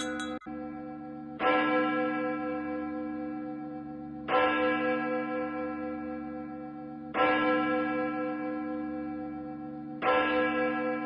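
A single church bell tolling slowly, struck four times about three seconds apart, each stroke ringing on and fading before the next: a funeral toll.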